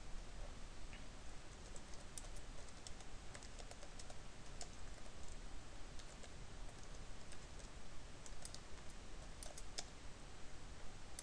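Typing on a computer keyboard: irregular key clicks in short runs with pauses between.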